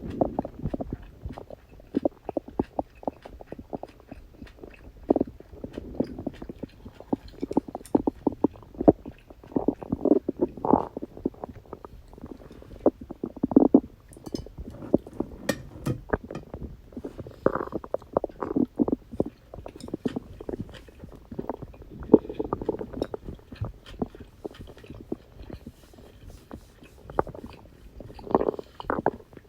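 A person's stomach and intestines gurgling and growling: digestion sounds, irregular squelches and small pops with a louder rumble every few seconds.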